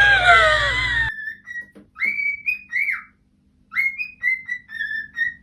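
Pet bird whistling a short, clear tune of three or four notes, repeated with short pauses. It starts about a second in, after a cut from a different sound with a low hum.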